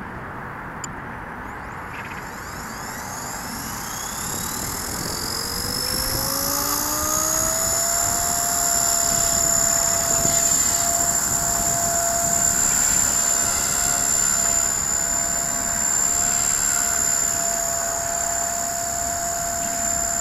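Blade 180 CFX electric RC helicopter spooling up for flight: the motor and rotor whine rise in pitch for several seconds, then hold a steady high whine as it flies.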